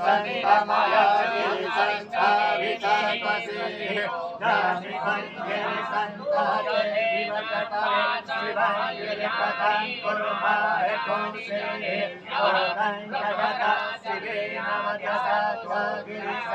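A Hindu priest's male voice chanting Sanskrit Vedic mantras in a continuous, melodic recitation for a Rudrabhishek puja.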